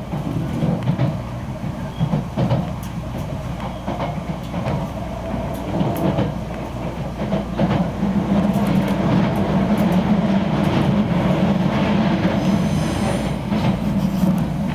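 Running sound of a Keisei new AE-series express train, heard from inside a passenger car: a steady rumble of wheels on rail with scattered clicks from the rail joints, growing louder about eight seconds in. A brief high squeal comes near the end.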